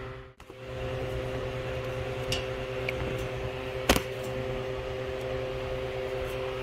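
A steady machine hum with two steady tones, like a fan or air conditioner running, and a single sharp click about four seconds in.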